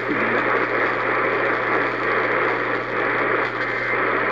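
AM radio static: a steady hiss with a low hum underneath, heard through a receiver.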